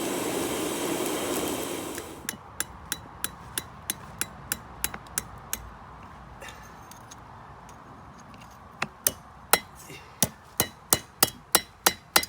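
A steady rushing noise that stops about two seconds in, then a blacksmith's hand hammer striking hot steel on an anvil with ringing blows. First comes a run of about a dozen even taps at roughly three a second, then a pause, then a louder run of about ten blows near the end.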